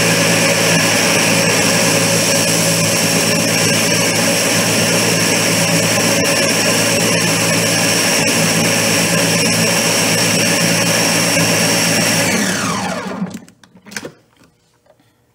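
Countertop blender running steadily at full speed, blending frozen strawberries and yogurt. About twelve and a half seconds in, the motor is switched off and winds down with a falling whine, followed by a couple of light knocks.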